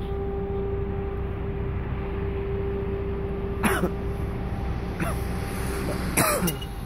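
Steady low rumble of road traffic with a constant hum. Twice, about midway and just after six seconds, a person briefly clears their throat.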